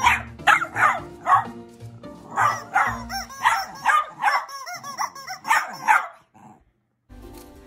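Jack Russell terrier barking in quick short barks, about two a second, which stop about six seconds in; background music runs underneath.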